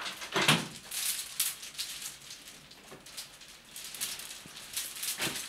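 Light rattling and rustling of someone moving about a small room: the bead strands of a string curtain being brushed and a towel being handled, in a run of short scuffs and rattles.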